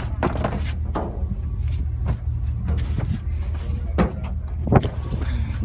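Pickup truck's low steady rumble heard from its open bed, with scattered knocks and bumps from handling and moving about, and a few brief bits of voice.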